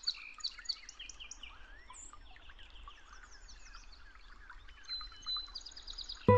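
Several birds chirping and singing at once, a dense run of short, quick calls. Music comes in at the very end.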